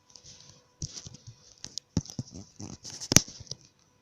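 A sheet of paper being handled and folded in half: rustling and crinkling with a few taps, and one sharp snap about three seconds in.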